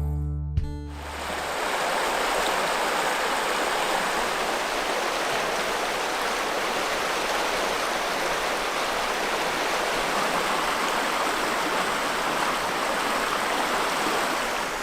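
Steady rush of the Aguanish River's whitewater, one even roar of water. The last notes of music fade out about a second in.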